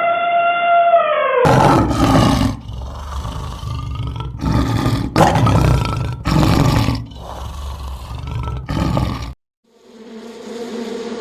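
A large animal roaring in a run of about seven deep, rough bursts. It is preceded by a high drawn-out call that falls in pitch at its end, and near the end the roars stop and a steady buzzing begins.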